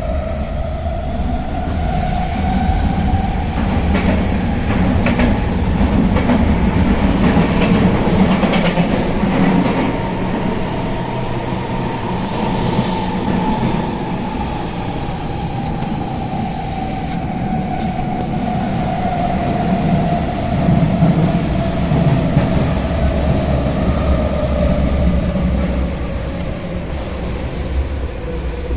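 Athens Metro Line 2 train running between stations, heard from inside the carriage: a steady low rumble of wheels on track, with the motor whine rising in pitch over the first ten seconds or so and then slowly falling. A few brief rattles come through early on and about a third of the way in.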